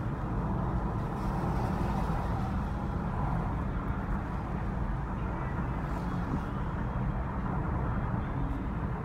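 Steady road and engine noise heard inside the cabin of a car driving at highway speed.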